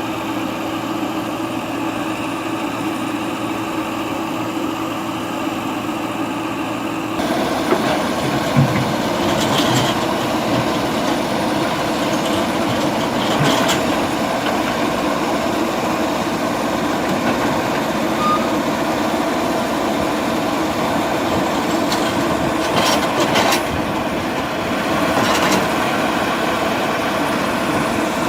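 MST backhoe loader's diesel engine, running steadily at idle, then louder and rougher from about seven seconds in, with a few scattered knocks and clanks.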